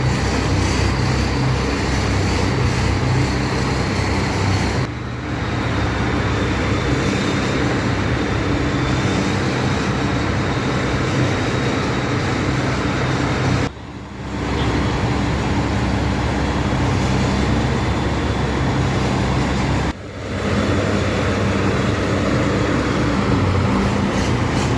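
Rice combine harvester running steadily under test, its engine drone with a faint high whine on top, dipping briefly three times.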